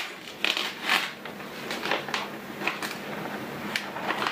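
Handling noises: a large sheet of paper or film rustling as it is moved over a laptop display panel, with a few short scrapes and taps.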